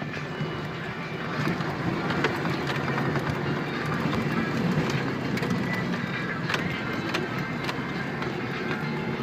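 Opel Campo 4x4 pickup driving off-road on a forest track. The engine runs steadily under scattered short knocks and rattles from the vehicle working over rough ground.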